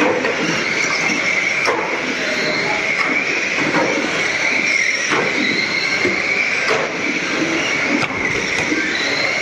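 A pack of small electric radio-controlled ministox cars racing on a carpet track. Their motors give a steady high whine, with higher whines rising and falling as cars pass, and occasional sharp knocks as cars make contact.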